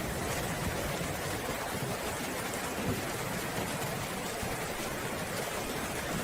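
Steady rain falling in an even hiss, with a low rumble underneath.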